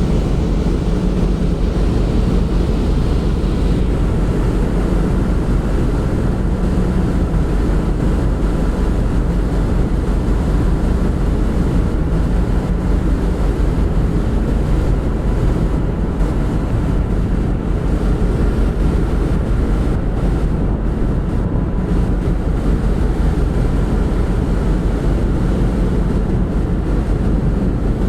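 Steady low rumble of a ship's engines and machinery with a constant hum, mixed with wind buffeting the microphone.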